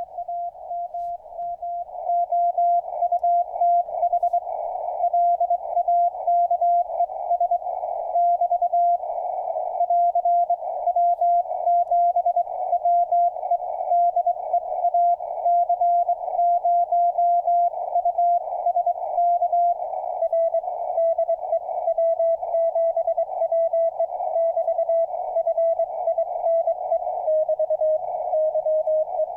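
Morse code (CW) signals received on an HF amateur radio transceiver and played through a tuned CW speaker: a steady tone of around 700 Hz keyed rapidly on and off in dits and dahs. Near the end the tone drops slightly in pitch, as a second signal at a different offset takes over.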